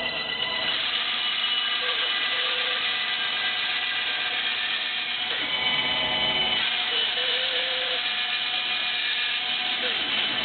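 A power tool running steadily, with a thin whine held over it.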